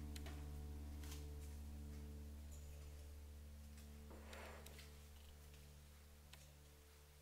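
Very quiet: low sustained background tones slowly fading away, with a few soft taps and a brief rustle as flower stems are set into a glass vase.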